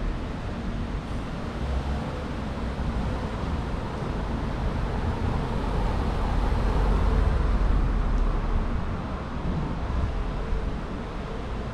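A compact SUV driving slowly past at the curb: its engine and tyre noise swell to a peak about six to eight seconds in, then fade. A steady low rumble runs underneath.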